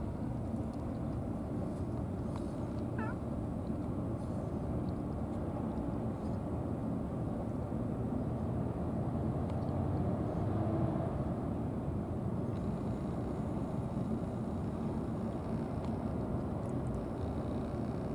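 Domestic cat giving one short meow about three seconds in, over a steady low outdoor rumble.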